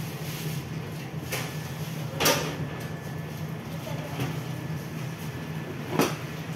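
A steady low machine hum, with a few short soft knocks and rustles as a sheet of puff pastry dough is folded by hand, about a second in, two seconds in and near the end.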